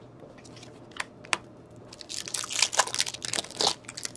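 A trading card pack and its cards being handled: two sharp clicks about a second in, then a run of crinkling and rustling from the pack wrapper and cards that eases off near the end.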